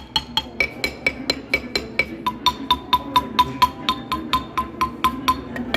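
Quick, evenly spaced percussive notes, about four or five a second, each a sharp clicky strike with a pitched ring. The same note repeats several strikes before the pitch changes, and about two seconds in it settles on a lower repeated note that runs for most of the rest.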